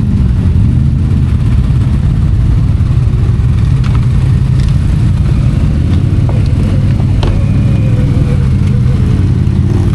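ATV engine running steadily while riding along a trail.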